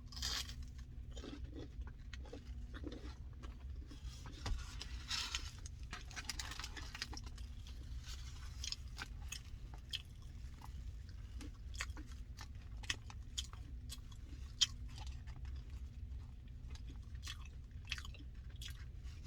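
A person chewing food close to the microphone, with crunches and scattered short mouth clicks, over a steady low hum.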